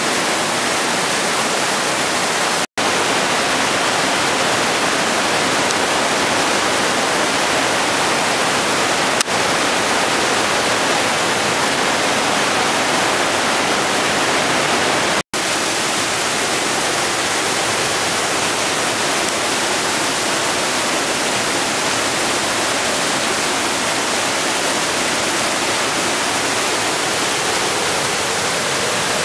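The Hammersbach mountain stream rushing and churning through the narrow rock gorge of the Höllentalklamm. It is a loud, steady roar of white water. The sound cuts out for a split second twice.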